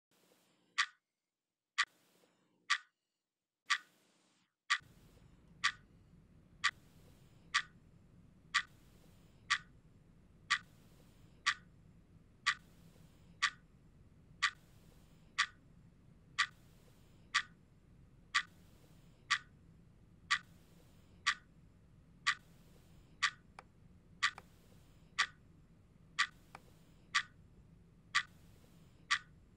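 A clock ticking steadily, about one tick a second. For the first few seconds the gaps between ticks are dead silent, then a faint low hum sits underneath.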